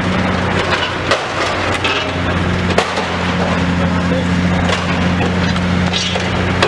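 Demolition excavator's engine running steadily, with repeated cracking, snapping and crunching as building material is broken and torn apart.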